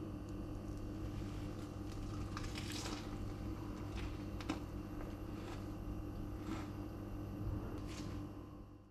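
A steady low hum with a handful of light clicks and scrapes from a metal spoon on a ceramic plate. There is a longer scratchy noise about three seconds in, and the sound fades out at the very end.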